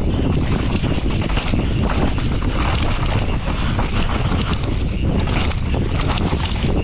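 Wind buffeting the microphone of a camera riding down a downhill mountain bike track, with a steady rumble and many quick rattles and knocks from the bike over rough ground.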